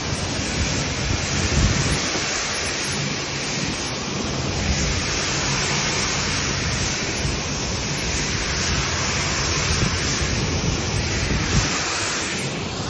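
Pressure washer spraying: a steady hiss of high-pressure water, with a low, even hum from the machine underneath.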